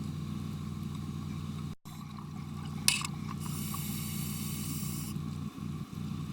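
Underwater scuba breathing through a regulator, over a steady low hum: a click a little before halfway, then a hiss of exhaled bubbles for about two seconds.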